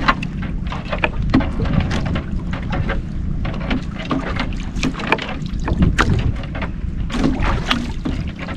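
Water slapping and lapping against the hull of a small wooden outrigger boat adrift, with irregular sharp slaps and knocks over a steady low wind rumble on the microphone.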